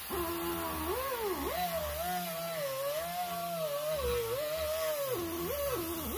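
Air die grinder whining as it polishes the exhaust port of an aluminium Mazda rotary rotor housing with an abrasive bit. Its pitch rises and falls as it is pressed into the metal, sagging sharply about a second and a half in and twice near the end.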